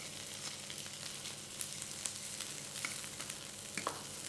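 Shredded cabbage sizzling in hot butter in a frying pan, a steady hiss with scattered crackles. A few sharp clicks near the end come from metal tongs against the pan as the cabbage is turned.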